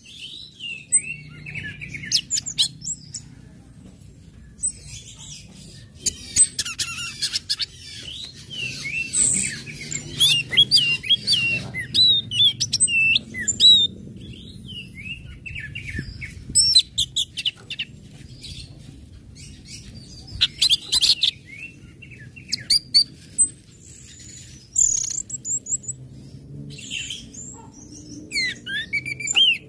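Orange-headed thrush singing a varied, fast song of high chirps, short gliding whistles and quick rattling ticks, in bursts with short pauses, over a faint low hum.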